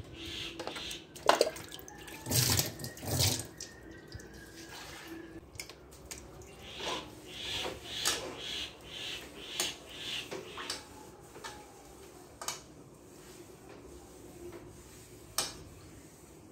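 A metal kadai (wok) being washed by hand with tap water: water splashing and scrubbing, with sharp metal knocks and clinks against steel bowls. The loudest knocks come in the first few seconds, some ringing briefly.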